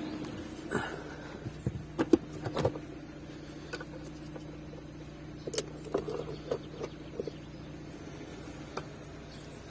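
Scattered clicks and small knocks as a handheld OBD code reader and its cable plug are handled and connected inside a car, most of them in two clusters, around two seconds in and again past the middle. Under them runs a steady low hum.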